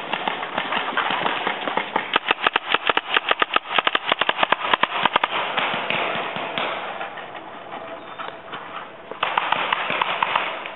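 Paintball markers firing in rapid strings of sharp pops, several shots a second, thickest about two to five seconds in, with another volley near the end.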